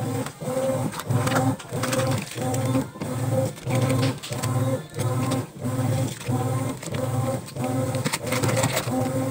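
Top-loading washing machine agitating a sudsy load: the motor hums in even strokes about twice a second. Water sloshes and splashes as hands work the wet clothes.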